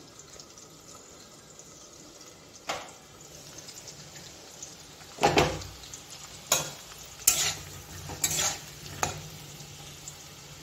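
Potato chunks sizzling as they fry in oil in a metal kadai. In the second half a metal spatula clanks and scrapes against the pan five or six times as the pieces are turned.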